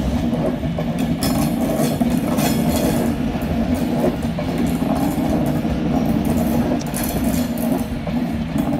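Class 390 Pendolino electric train pulling out of the station and rolling past: a steady electric hum over the rumble of the wheels, with scattered clicks as the wheels cross rail joints.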